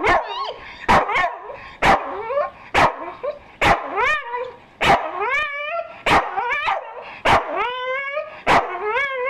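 Staffordshire Bull Terrier barking sharply about once a second, with high, wavering whining howls between the barks: demand barking for a treat the owner is holding out.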